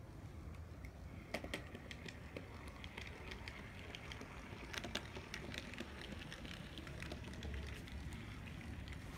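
HO scale brass 0-4-0 tank locomotive and its cars running on model track: irregular small metallic clicks as the wheels cross rail joints and a turnout, over a low steady hum.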